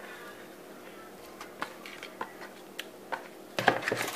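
Aluminum foil and raw shrimp being handled in a foil-lined bowl: light scattered clicks and rustles, then louder crinkling of the foil about three and a half seconds in.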